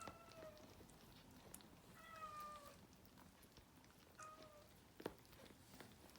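Cat meowing faintly: three short meows, each gliding slightly down in pitch, with a few small clicks between them.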